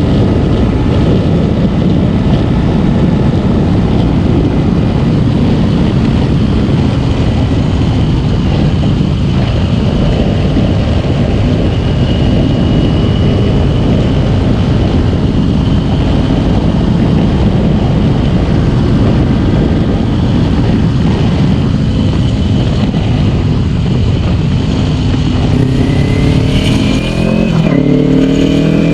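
Kawasaki Ninja 250's parallel-twin engine on the move, heard under heavy wind noise on the microphone. Near the end the revs climb as it accelerates.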